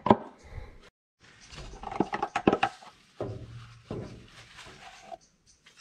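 Yellow plastic oil funnel worked out of an engine's oil filler neck and handled, with a series of hollow plastic knocks and clicks over rustling.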